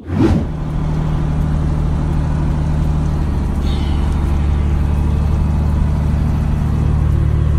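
Caterpillar C15 ACERT diesel in a Peterbilt 379 running steadily, heard from inside the cab as a loud, even low drone.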